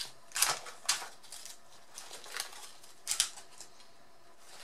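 Small plastic zip-lock bags crinkling as hands handle them, in several short bursts, then quieter for the last second or so.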